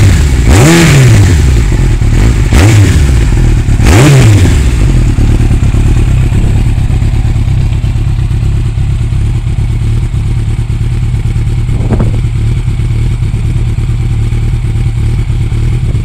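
Yamaha YZF1000R Thunderace's carburetted 1000 cc inline-four engine, heard through a carbon silencer, blipped three times in quick succession and then settling to a steady idle. It is freshly serviced with its carbs balanced and runs smoothly.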